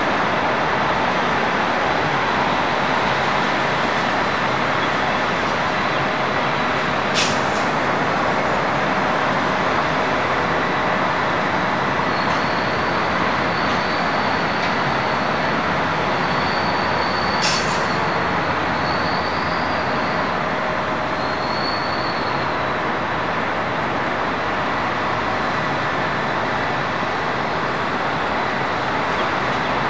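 Concrete mixer trucks' diesel engines running steadily. There are two brief sharp clicks, about seven seconds in and again near the middle, and a faint high wavering whistle in between.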